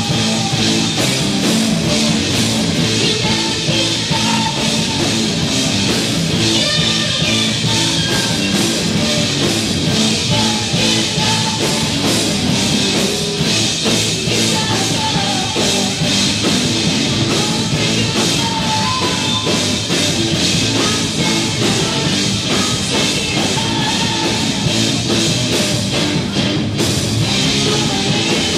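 Live rock band playing loud: electric guitar, drum kit and a woman singing into a microphone.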